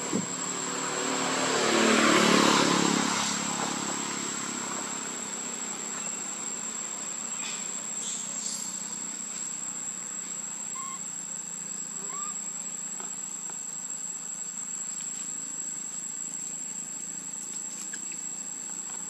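Steady, high-pitched insect drone. About one to three seconds in, a vehicle passes, swelling and fading with its engine note falling.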